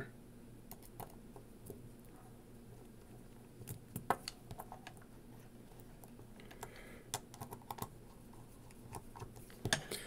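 Faint, scattered small clicks and taps of a precision screwdriver working the terminal screw of an 8-pin M12 field-wireable connector, tightening a wire in place. A few louder clicks come about four seconds in and just before the end.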